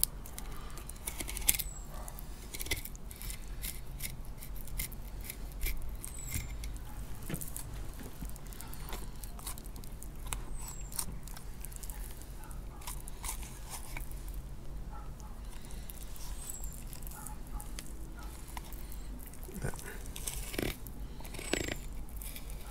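Fillet knife scraping and ticking along a cod's backbone as the fillet is cut free: a run of short, irregular clicks where the blade rides over the bones.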